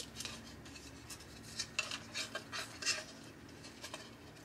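Quiet handling noises: a few light clicks and taps, mostly in the middle, as a small wooden hanging sign is turned in the hands and its twine hanger is pulled straight.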